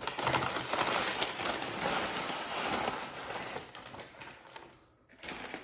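Crinkling and rustling of paper packaging being handled, a dense crackle for about four seconds that dies away, with a short rustle again near the end.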